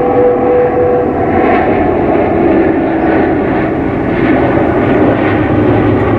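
Large aircraft passing low overhead: a loud, steady engine drone whose pitch drops partway through, with a faint pulsing about once a second.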